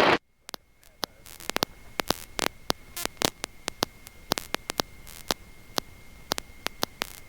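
Loud cockpit noise cuts off abruptly right at the start. It leaves faint electrical static: a hiss with a thin, steady high whine and irregular sharp clicks and crackles.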